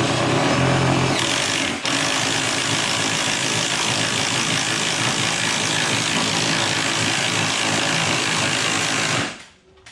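Drill with a long bit boring into the wood framing above a ceiling hole, running steadily under load for about nine seconds. It dips briefly near two seconds in and stops just before the end.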